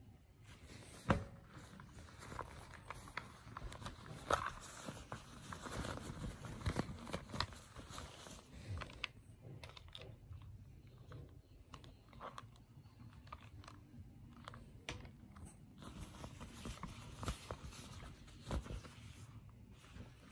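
Faint rustling of a cloth drawstring pouch and handling of a plastic Sith holocron toy, with scattered light clicks and taps.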